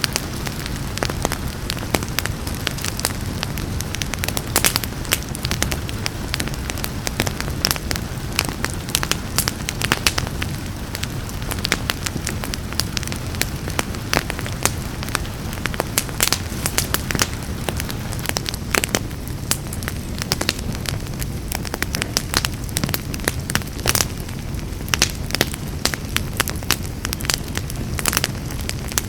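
Wood fire crackling, with dense, irregular sharp pops and snaps over a steady low rumble of flame, and rain falling underneath.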